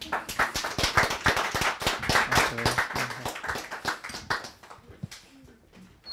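Audience applauding, thinning out and dying away about five seconds in.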